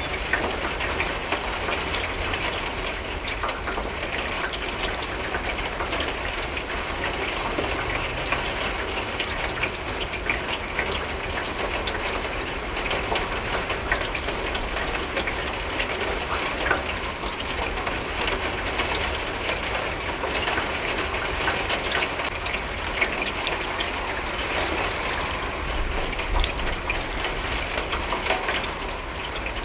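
Steady rain falling on window glass: an even hiss of rain with countless small, irregular drop ticks, over a low rumble underneath.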